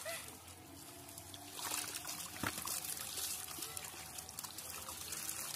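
Shallow pond water splashing and trickling as tilapia flap in a seine net drawn to the bank, with a sharper splash about two and a half seconds in.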